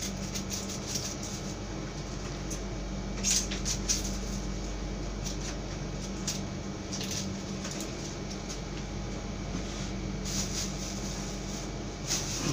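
A plastic bag crinkling and rustling in short spells as it is handled, loudest about three seconds in and again around ten seconds, over the steady hum of an air conditioner.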